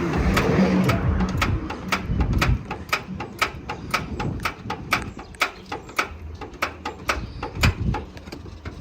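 Turn signal flasher of a Mercury Grand Marquis clicking at a quick, even beat of about two and a half clicks a second. Low rumbling and knocking sit under it during the first two and a half seconds.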